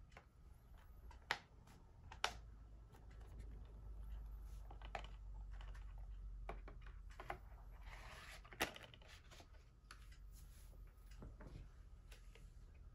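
Hands handling a metal steelbook case and its plastic slipcover: three sharp clicks and taps, with soft sliding and rustling of the plastic sleeve between them.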